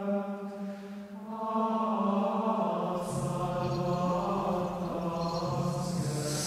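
Slow, droning chant-like music of long held notes. More held notes build in about a second in, and a deeper note joins about three seconds in.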